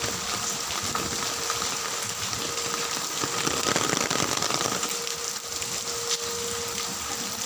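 Heavy rain falling, a dense steady hiss that swells a little about halfway through.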